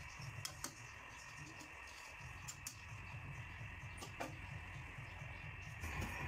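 Metal spatula stirring laing in an aluminium wok, clinking and scraping against the pan a few times over a steady low hiss.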